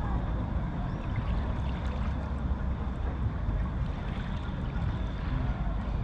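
Steady outdoor background noise: a low rumble under an even hiss, with no clear bird call.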